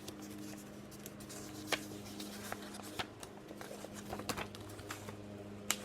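Light clicks and soft rustles of a picture book being handled, its pages being turned, over a steady low electrical hum.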